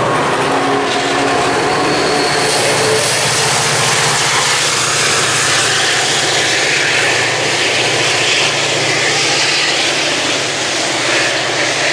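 Rebuilt Metra F40PH diesel locomotive under heavy throttle as it pulls away with its train of bilevel commuter cars. Its engine is a loud, steady low drone under the rush of the passing cars.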